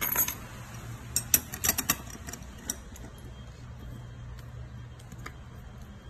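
Small metal clinks and a key ring jangling as a brass lock cylinder and its keys are handled and set down. A quick run of clinks comes in the first two seconds or so, then only occasional faint ticks.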